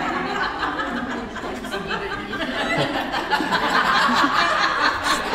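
Several people laughing and chuckling together in a room, a steady ripple of overlapping laughter that swells a little toward the end.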